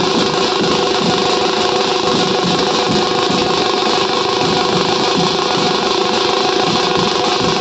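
A banjo party band playing without a break: a buzzy amplified banjo melody over fast drumming on strap-hung double-headed drums beaten with stick and hand.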